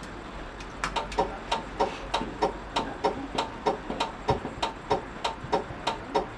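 Regular ticking in a tram driver's cab, about three ticks a second with a short ringing tone in each, starting about a second in, over a low steady hum.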